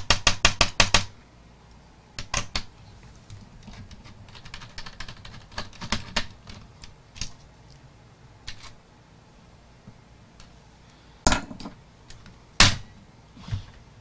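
Small screwdriver turning out a screw from a laptop palm rest's metal frame: a quick run of sharp clicks at the start, then light scattered ticks of metal on metal, and two sharper clicks near the end.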